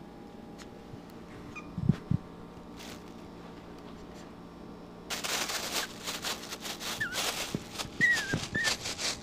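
Plastic bag crinkling and rustling from about halfway through as a puppy paws and noses at it, with a few short high squeaks from the puppy. Two soft thumps about two seconds in.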